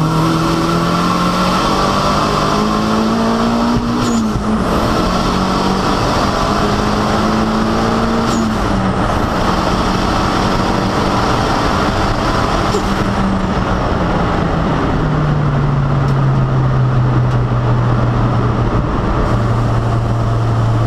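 Toyota MR2 SW20 race car's turbocharged four-cylinder engine, fitted with a Garrett 3582 turbo, heard inside the cabin under full throttle. The engine pitch climbs and drops back at upshifts about four and nine seconds in, climbs again, then falls to a lower steady pitch from about fifteen seconds in as the throttle is lifted.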